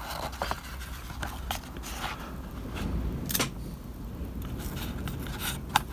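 Hands handling strips of Tamiya masking tape and pressing them onto a card model roof: small rustles and a few sharp ticks, the clearest about halfway through and just before the end.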